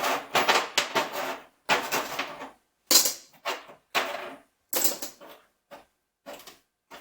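Loose small metal tools and parts clinking and clattering in a steel tool box drawer as they are picked up and dropped one after another, with a sharp clank about three seconds in.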